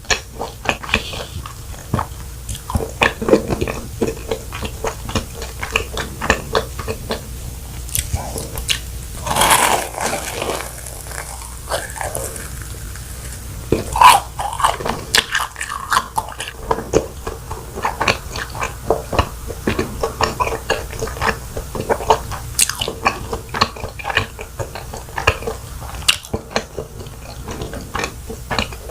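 Close-miked eating of fried cheese balls: repeated bites and chewing, with the crust crunching and wet mouth clicks. A louder burst of chewing comes about a third of the way in.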